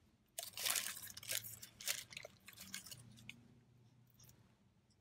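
Biting into and chewing a Culver's ButterBurger cheeseburger, with close, crunchy, wet mouth sounds. The sounds are loudest in the first two seconds, then give way to quieter chewing.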